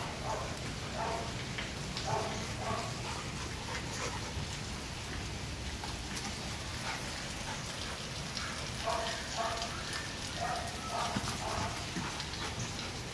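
Two dogs play-fighting, giving short yips and play growls in clusters, near the start, around two seconds in and again from about nine to twelve seconds, over a steady background hiss.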